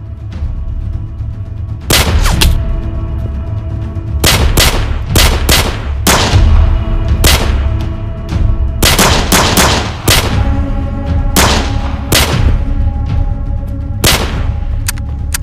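Gunshots fired irregularly, starting about two seconds in, some singly and some in quick clusters, each with a short echoing tail, over tense film music with held tones and a constant deep drum rumble.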